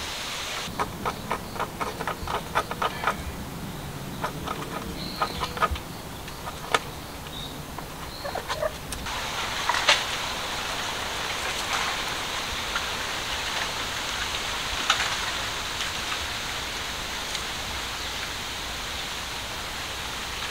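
A kitten's claws scratching a sisal-rope post, a rapid, irregular run of sharp scratchy clicks that stops about nine seconds in. After that there is a steady outdoor hiss with a few faint ticks.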